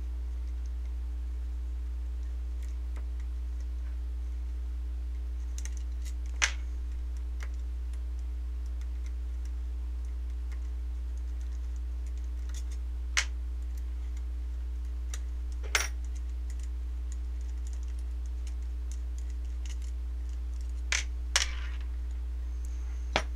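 A handful of short, light clicks and taps from an airsoft gearbox shell and its small parts being handled and set down, spread out over a steady low hum.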